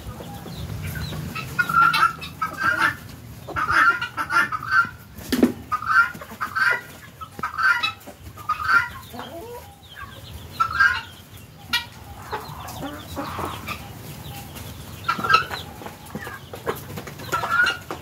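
Helmeted guineafowl calling: harsh, repeated short calls in clusters with brief gaps. There is one sharp knock about five seconds in.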